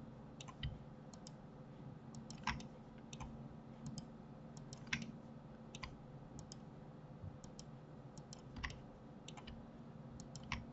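Computer mouse and keyboard clicks, scattered and irregular, a few of them sharper than the rest, over a faint steady hum.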